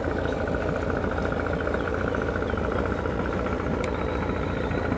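Engine idling steadily, its note pulsing fast and evenly, with a brief click near the end.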